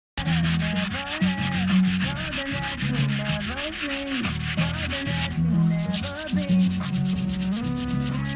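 Sandpaper rubbed by hand in quick, even back-and-forth strokes over the wooden arm of a chair, sanding down dried wood-filler patches.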